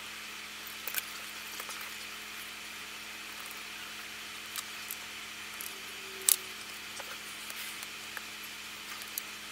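Steady faint hiss with a low hum, broken by a few small clicks and taps, the loudest about six seconds in: a small circuit board being handled and unclamped from a bench holder.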